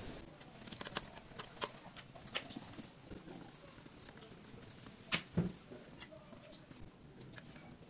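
Faint, scattered small clicks and taps of hands working at the needle bar and thread of an industrial sewing machine. The loudest is a pair of knocks about five seconds in.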